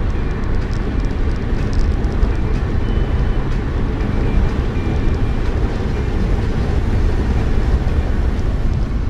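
Steady low rumble of a car driving along an open road, engine and tyre noise heard from inside the cabin.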